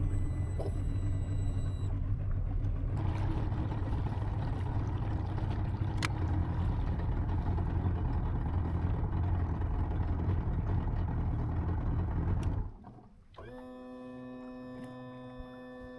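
Outboard boat motor running steadily with hull and water noise, a low rumble that cuts off abruptly about thirteen seconds in. A steady pitched tone with several overtones follows near the end.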